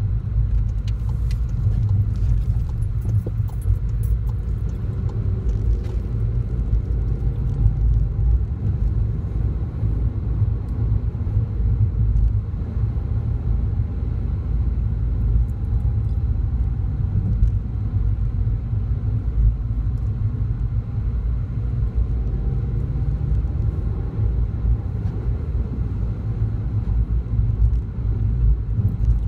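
Steady low rumble of a car driving along city streets, heard from inside the cabin: engine and tyre noise.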